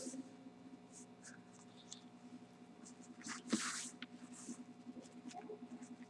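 Faint paper rustling with small clicks, and one louder rustle a little past halfway through, over a steady faint hum.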